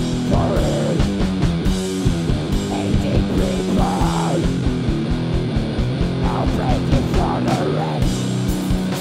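Rock music: a band with electric guitar and drums playing at a steady beat, with a wavering lead line over the chords.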